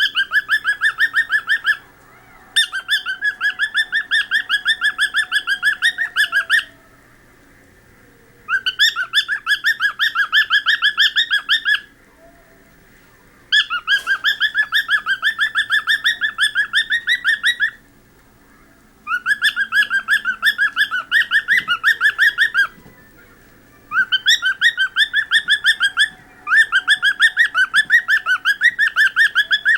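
Cockatiel chirping in runs of rapid, evenly repeated notes, each run lasting a few seconds with short pauses between, about seven runs in all.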